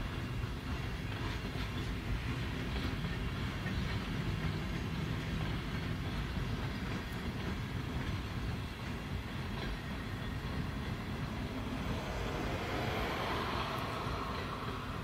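Freight train of boxcars and refrigerator cars rolling past at steady speed, its steel wheels running on the rails with a continuous rolling noise. A higher rushing noise swells for a moment near the end.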